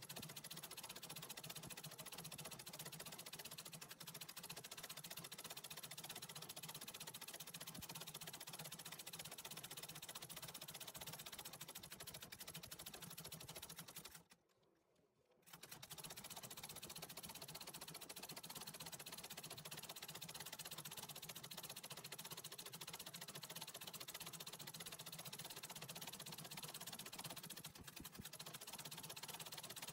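Antique treadle sewing machine running steadily and faintly as it stitches embroidery. The sound cuts out for about a second halfway through, then carries on.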